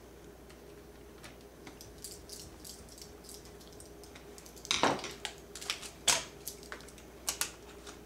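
Hands working on a Dell D520 laptop's plastic case with a small screwdriver: faint ticks and scrapes of screws being driven in, then from about halfway a run of sharp clicks and knocks as tools and plastic parts are handled.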